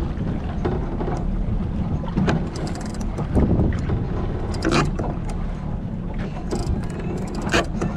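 Wind buffeting the microphone on a moving boat, with water rushing along the hull and a few sharp knocks.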